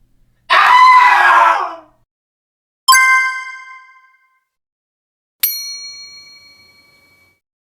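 A noisy sound effect about a second long, then two separate bell dings: each a sharp strike that rings out and fades, the second higher-pitched and ringing longer.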